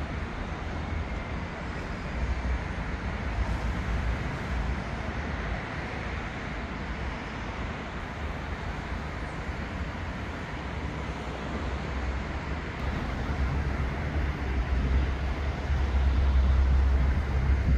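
City street traffic noise, a steady rumble with wind buffeting the microphone, growing louder over the last few seconds.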